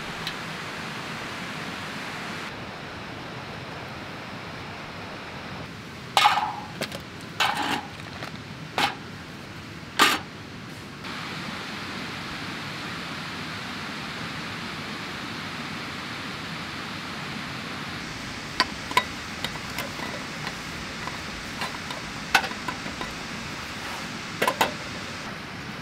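Steady rush of water pouring over a weir. Over it come several sharp knocks with a short ring about a third of the way in, then lighter metal clinks near the end as cook pots and lids are handled over a mesh camp table.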